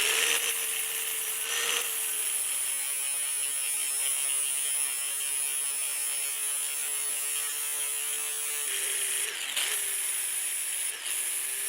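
High-speed grinder with a 120-grit flap wheel running steadily as it sands paint and metal off a steel motorcycle frame, a continuous high-pitched whine. Its pitch drops a little about three-quarters of the way in as it bears on the work.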